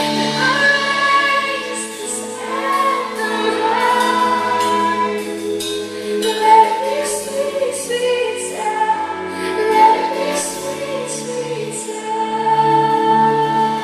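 Live Christian worship song with sung notes held and sliding over band accompaniment, with repeated crisp high strokes like cymbals.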